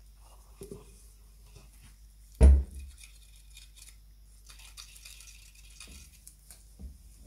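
Small handling clicks and faint scraping, with one loud, sharp thump about two and a half seconds in, as of something set down or knocked against a workbench.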